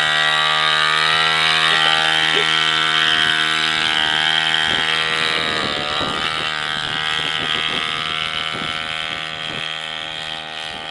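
Pocket bike's small two-stroke engine running at high, steady revs, its pitch barely changing, slowly growing fainter over the last few seconds.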